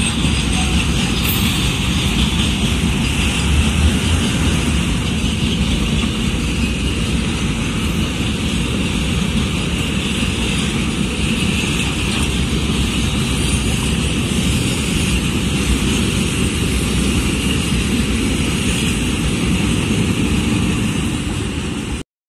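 Container freight train rolling past close by: a steady rumble of wagon wheels on the rails, cutting off suddenly near the end.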